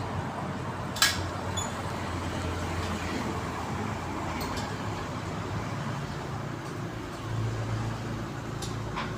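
A steady low engine-like hum, with a sharp click about a second in and a lighter one near the end.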